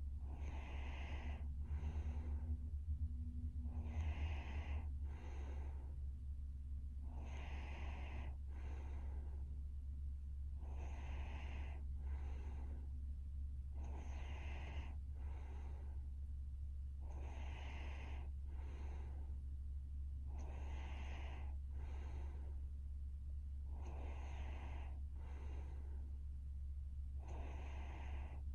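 A sleeping young woman snoring and breathing, one breath about every three seconds, each a longer drawn breath followed by a short second puff, over a steady low hum.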